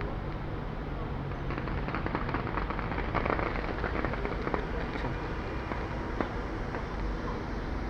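Fireworks crackling: a dense run of many small pops and crackles from about a second and a half in to about four and a half seconds, then a few scattered pops, over a steady low rumble.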